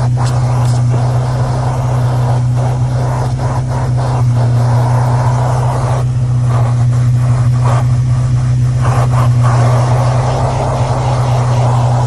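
Fujihama 1200 W wet/dry vacuum cleaner running with a steady low hum while its hose nozzle sucks along a car's floor carpet. The rush of air rises and falls as the nozzle moves, with occasional knocks and scrapes of the nozzle.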